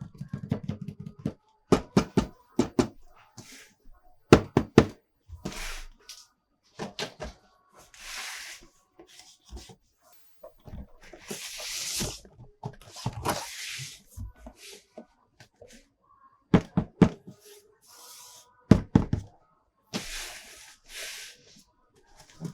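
Plastic toys and packaging being handled: many sharp clicks and knocks, with several longer scraping or rustling sounds in between.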